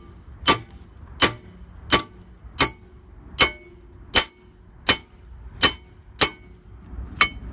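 A 3-pound sledgehammer repeatedly strikes a brake rotor rusted fast to the hub, about ten steady blows a little under a second and a half apart, each ringing briefly as metal hits metal. The rotor is seized to the axle hub by rust.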